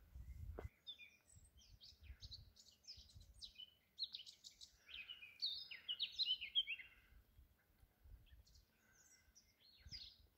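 Songbirds singing: many short high chirps and quick descending phrases, loudest in the middle, over faint low rumbles.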